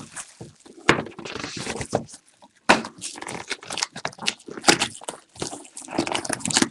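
Packaging being torn open and handled: tearing plastic wrap and crinkling wrapper with irregular clicks and crackles of cardboard, as a box of football trading cards is opened.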